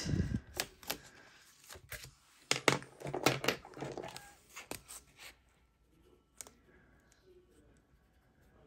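Cash being handled: a run of clicks and rustles as banknotes and coins are sorted, for about five seconds, then only faint occasional ticks.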